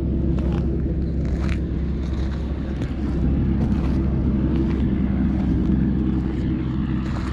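A steady low engine drone with a constant pitch, running unchanged throughout, with a few faint clicks over it.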